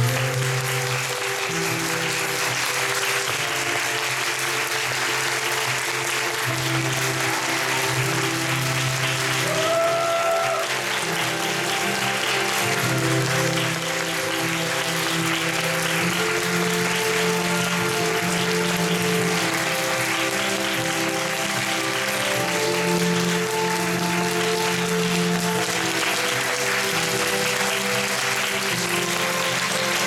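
Theatre audience clapping steadily through a curtain call, over recorded music with long held notes.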